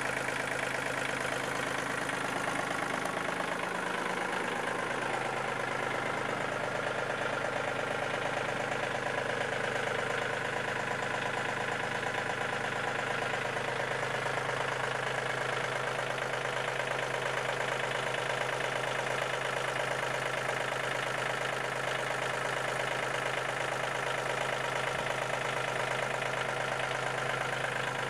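Yanmar CT226 crawler tractor's diesel engine idling steadily.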